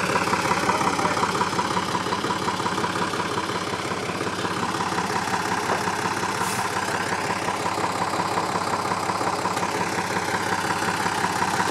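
Engine of a 1976 Linde forklift running steadily as the forklift creeps forward pushing a heavy tipping bunker.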